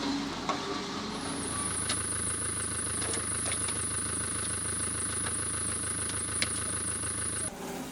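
Construction-site machinery with an engine running steadily, a thin high whine and scattered clicks; it cuts off suddenly near the end.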